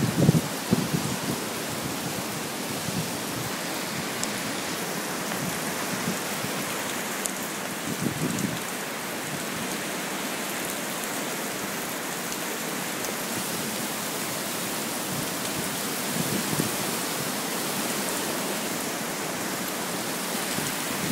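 Heavy hurricane rain pouring down steadily in a constant hiss, with a few low gusts of wind swelling and fading near the start, about eight seconds in, and again around sixteen seconds.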